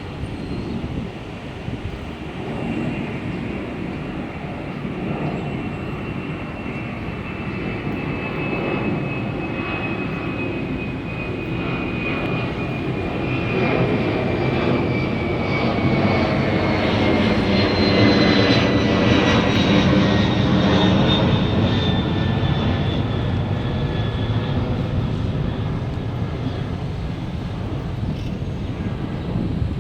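Fixed-wing aircraft flying past overhead. Its engine noise builds, is loudest a little past the middle, then eases off, and a high whine slides slowly down in pitch as it passes.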